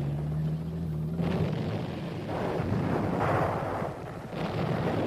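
Rumbling battle noise: a low steady hum for about the first second, then rushing swells of noise like distant explosions, the loudest a little over three seconds in, with another swell near the end.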